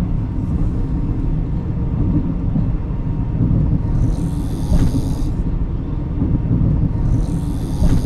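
A sleeping passenger snoring loudly in a sleeper-train berth, two snoring breaths about three seconds apart, over the steady low rumble of the moving train carriage.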